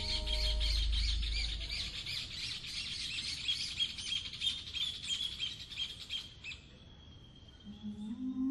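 Dense, fast high twittering birdsong in the background music track, over a low held note that fades out in the first two seconds. The twittering stops about six and a half seconds in, and near the end a stepped, rising synth melody begins.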